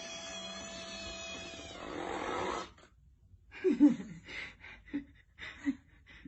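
A cat meowing: one loud, short call that falls in pitch about halfway through, followed by a few shorter, softer sounds. Before it, a steady background noise with a faint hum cuts off suddenly.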